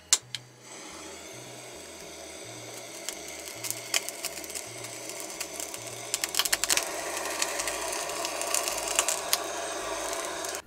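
Butane blowtorch clicking alight, then its flame hissing steadily onto chicken skin in a frying pan, with rapid crackling and popping as the fat is seared off; the crackle is thickest past the middle.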